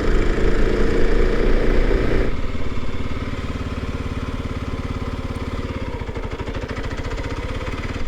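Kawasaki KLX 300 single-cylinder four-stroke engine running while the motorcycle is ridden. It pulls louder at first, then eases off about two seconds in to a lower, steady beat.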